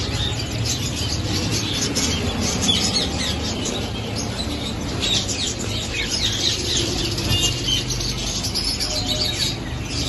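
Many small caged birds chirping and twittering at once, a dense chatter of short high calls, over a steady low hum.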